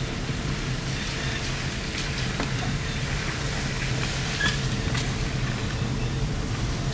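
Car cabin noise while driving slowly: a steady low engine and road hum, with scattered light ticks.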